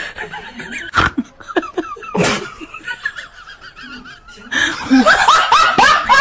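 A person laughing in repeated short bursts, loudest and most continuous in the last second and a half. There is a sharp knock about a second in and a brief rush of noise a little after two seconds.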